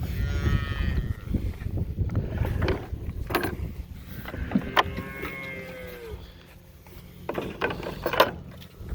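Dairy cows mooing in the barn, one call near the start and a falling moo about five seconds in, with scattered sharp knocks over a steady low hum.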